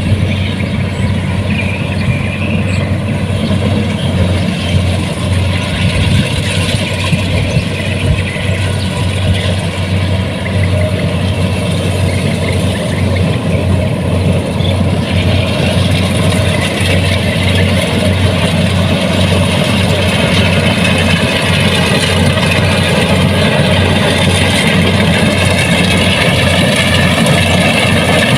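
Kubota DC-70 Plus combine harvester's diesel engine running steadily with a low hum. About halfway through, a higher-pitched whine joins in and the sound grows slightly louder.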